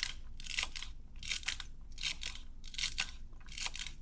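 Knife slicing through celery stalks, a crisp crunch with each cut, about one cut every two-thirds of a second.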